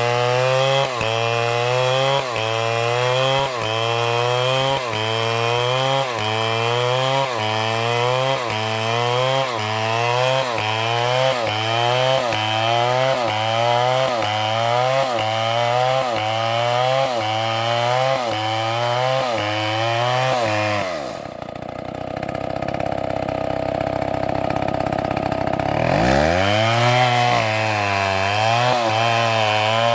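Chainsaw cutting wood, its engine pitch rising and dipping in a repeating cycle about once a second. About two-thirds of the way through, the engine pitch drops sharply to a duller, steadier sound for about five seconds, then revs back up and the cycling resumes.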